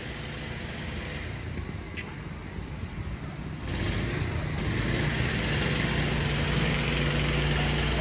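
An engine running steadily with a low hum, which grows louder about three and a half seconds in and then holds.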